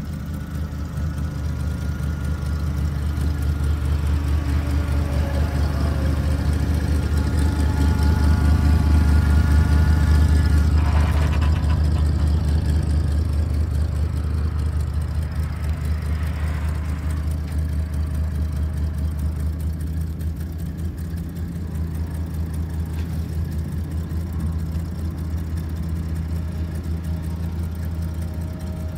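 1979 Chevrolet C70 grain truck's engine running steadily at idle. It grows louder around the middle and then settles back, with a faint steady whine over it in the first half.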